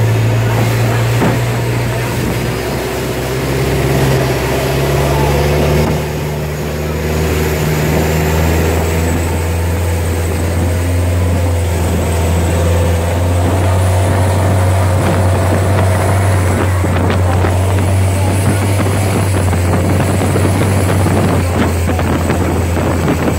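Ferry boat's engine running at speed with a steady low drone, over the rush of water and spray along the hull; the engine note shifts briefly about five or six seconds in.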